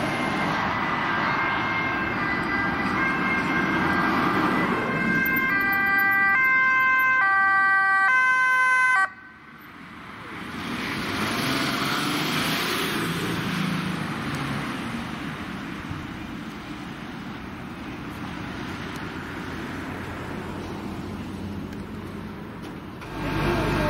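Ambulance two-tone emergency siren alternating between a high and a low note, about every two-thirds of a second. It cuts off abruptly about nine seconds in, leaving a steady traffic-like rush of a vehicle passing.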